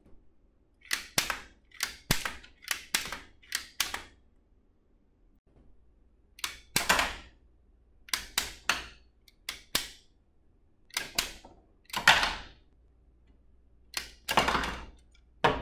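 Lego pump-action rubber band pistol being pumped and fired: groups of sharp plastic clicks and clacks, several in quick succession, with short pauses between groups, as small Lego targets are knocked over on the table.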